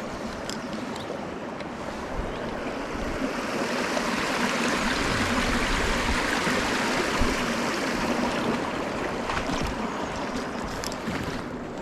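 Steady rush of a river's flowing water, running high after rain; it swells louder for a few seconds in the middle, then eases.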